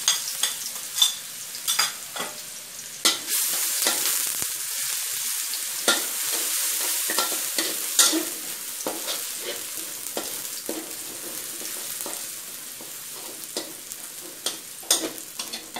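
Minced garlic sizzling in hot oil in a metal wok, being fried until lightly golden, while a metal spatula stirs it with scattered scrapes and clicks against the pan. The sizzle slowly quietens.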